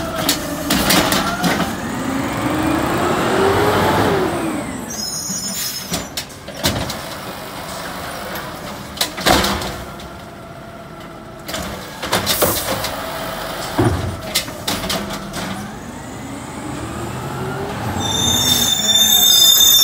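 Automated side-loader garbage truck pulling away: its diesel engine revs up and settles twice, with several sharp knocks in between. Near the end its brakes squeal high and loud as it slows for the next stop.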